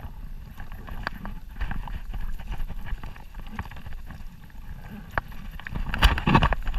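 Shallow estuary water sloshing and splashing as someone moves through it, with wind buffeting the microphone; the splashing grows louder about six seconds in.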